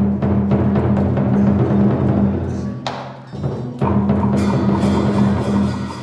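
Traditional Vietnamese water-puppet orchestra playing a loud, deep drum passage with ringing low drum tones. About three seconds in there is a sharp strike and a short drop, and the drumming comes back in strongly about a second later.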